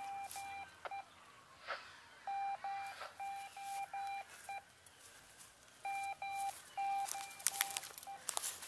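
A hidden fox transmitter's tone heard through a handheld radio receiver used for direction finding: one steady beep keyed on and off in long and short pulses, in three runs a few seconds apart. A few crackles of footsteps in leaf litter near the end.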